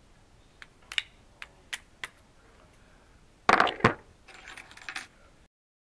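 Small metal clicks and clinks from keys being handled: a few light ticks, a louder double clatter about three and a half seconds in, then a short jingle before the sound cuts off.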